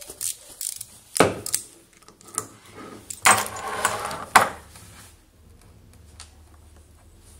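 Metal clicks and clatter as a bearing puller is handled on the shaft of a small electric motor armature: a few sharp clicks, then a dense clattering stretch ending in one sharp knock about halfway through. After that only a faint low hum remains.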